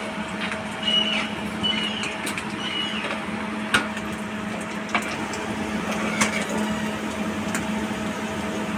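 A steel spatula clicking and scraping as fried fish are lifted from the pan and set down on paper towels. There are a few short scrapes early on and several sharp separate clicks, over a steady hum.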